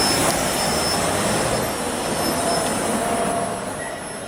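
Street traffic noise, a vehicle's engine and tyre rush that slowly fades away near the end.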